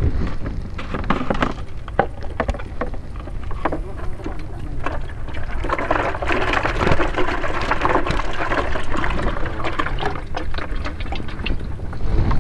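Water splashing and pouring as a perforated plastic fish-keeper container is handled, heaviest from about six to ten seconds in, with scattered clicks and a steady low wind rumble on the microphone.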